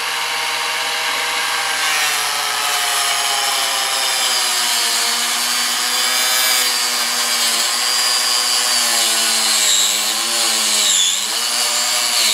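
Handheld electric power saw running while cutting down into a heavy punching bag's cover and stuffing. Its whine sags in pitch as the blade bogs under load, most deeply a little before the end.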